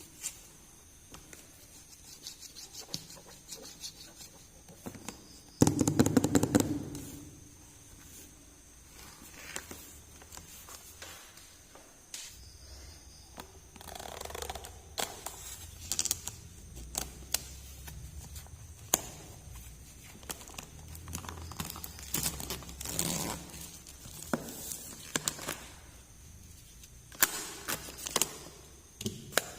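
Small plastic toy pieces and their packaging being handled: scattered clicks, taps and short scrapes, with one louder handling noise about six seconds in.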